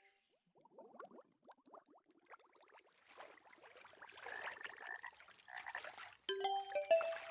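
Frogs croaking in a faint, rapid rattling series that grows louder and denser in the middle, part of the nature-sound backing of a relaxing phone ringtone. Near the end, the ringtone's synth melody comes back in with clear chiming notes.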